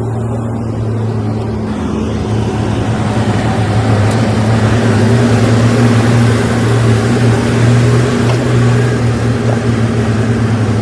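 Diesel engine of a heavy earthmoving machine running hard with a steady low drone; from about two seconds in it grows louder and rougher, as when the machine takes on load.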